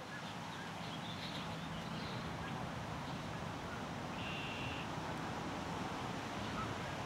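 Steady outdoor background noise: wind on the microphone over a low, even hum, with one short, faint high-pitched call about four seconds in.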